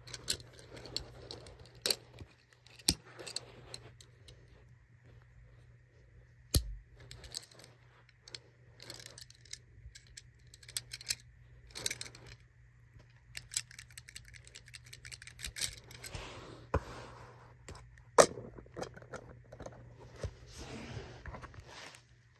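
A small Tomica die-cast toy car handled in the fingers: scattered clicks and taps with soft rubbing and rustling between them. A sharp knock about eighteen seconds in is the loudest.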